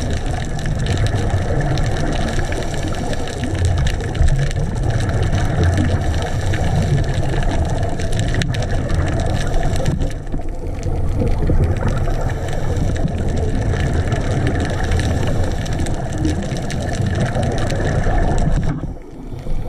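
Steady, muffled underwater rumble heard through a waterproof camera housing, with a faint crackle of ticks over it; it drops away briefly near the end.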